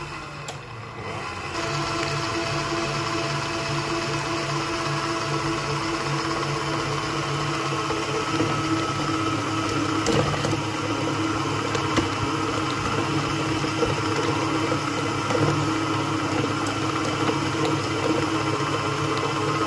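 Electric stand mixer running steadily, its beater churning creamed butter, sugar and a just-added egg in a steel bowl. The motor's steady hum steps up louder about a second and a half in.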